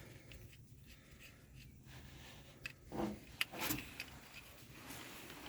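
Faint handling noises of removed wheel-bearing parts: a few light clicks and rubs about three seconds in, over a low steady hum.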